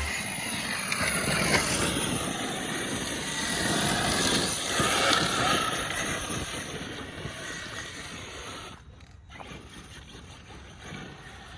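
Arrma Mojave 6S RC truck's brushless electric motor whining as the truck is driven, the pitch rising and falling with the throttle over tyre and gravel noise, then fading after about six seconds as it gets farther away.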